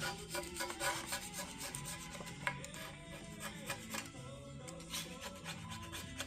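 Rapid, repeated scraping or rasping strokes, as of a tool worked back and forth on a part, over background music.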